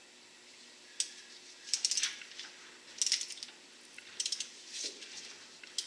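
Steel hardware clinking and rattling in about six short, sharp bursts roughly a second apart, as metal parts are handled and knocked together.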